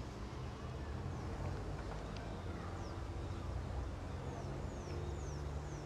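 Birds chirping, a run of short, high, falling notes from about two seconds in, over a steady low hum.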